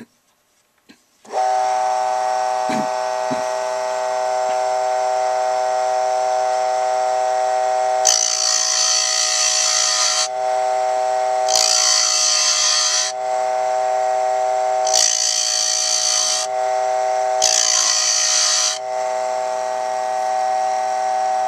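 Dremel Moto-Lathe Model 700's small electric motor switches on about a second in and runs with a steady whine. In the second half come four scraping hisses, each one to two seconds long, as a hand gouge cuts into the spinning wooden workpiece. The motor then switches off.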